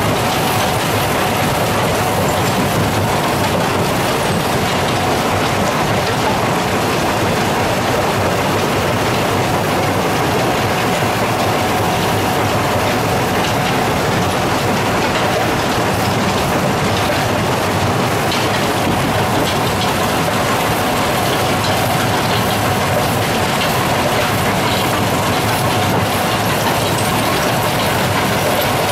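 Ore-processing plant machinery running, crusher, screens and belt conveyors, as a steady, unbroken mechanical clatter and rumble with a faint steady whine.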